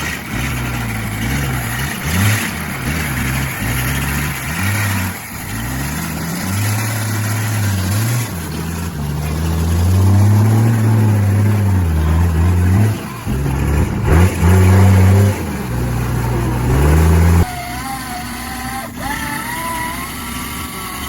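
Land Rover engine revving hard and unevenly, its pitch rising and falling again and again as the vehicle labours in swamp mud. About seventeen seconds in, the engine sound cuts off abruptly.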